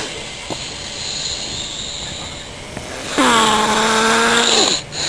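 A person snoring in a steady breathing rhythm: a quieter breath with a faint hiss, then, about three seconds in, a loud droning snore held for about a second and a half that ends abruptly.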